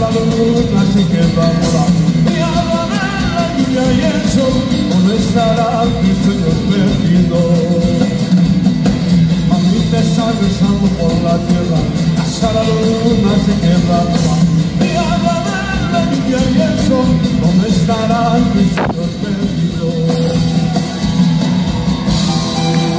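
Live Andean folk band playing a song: group vocals singing over guitars and a drum kit. The singing stops about nineteen seconds in, leaving the band playing on, with cymbals brightening near the end.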